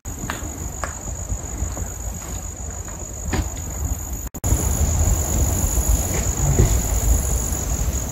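Insects trilling in the woods, one steady high-pitched tone, under an uneven low rumble on the microphone.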